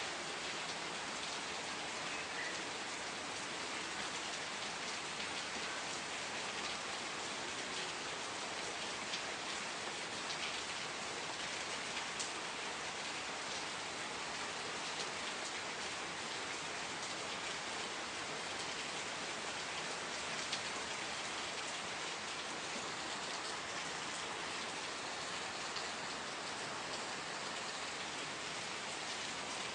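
Steady rain falling, an even hiss with scattered drops pattering on surfaces.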